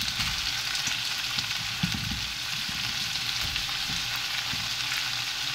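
Raw black tiger shrimp sizzling steadily as they are laid by hand into hot garlic oil and aromatics in a wok over high heat.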